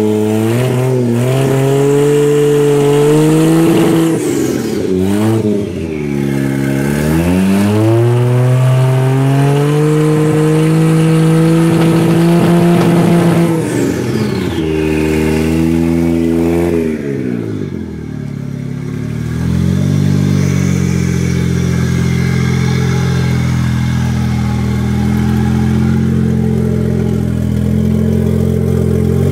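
Turbocharged Toyota 1JZ straight-six being revved up and held several times, the pitch rising and dropping back, then settling to a steady idle for roughly the last ten seconds. The engine breaks up and misfires under revs and won't build boost, a fault the owner traced to an ungrounded neutral safety switch.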